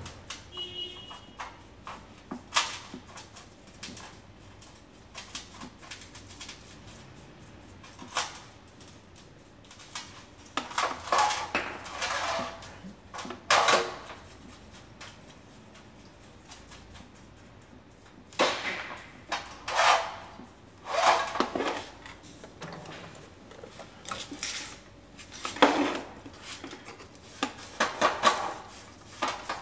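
A Suzuki TL1000R front fork leg being scrubbed in a metal pan of cleaning solvent: stretches of brushing and sloshing about a second long, with scattered knocks of metal against the pan.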